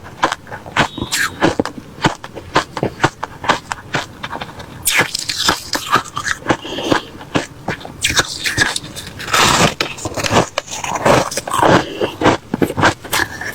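Person chewing and biting crunchy refrozen crushed ice close to the microphone: a rapid run of sharp crunches, with two longer, louder spells of crunching about five seconds in and again around eight to ten seconds.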